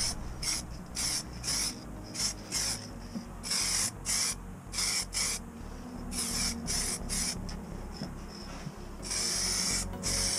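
Aerosol spray-paint can sprayed lightly back and forth in short hissing bursts, about a dozen of them, with one longer burst of about a second near the end.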